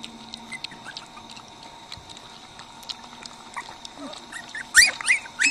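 Puppies lapping milk from a steel bowl, small wet clicks and slurps. Near the end a puppy gives a few high-pitched whimpering yelps, each rising and falling.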